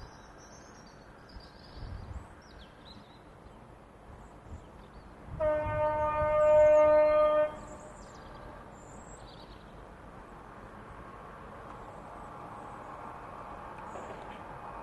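Diesel freight locomotive's horn sounding one long, steady note for about two seconds, followed by the low rumble of the class 66-hauled container train slowly growing as it approaches. Faint bird chirps come before the horn.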